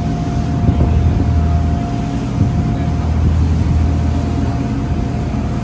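Charter fishing boat's engine running steadily underway: a low, even drone with a faint steady whine above it.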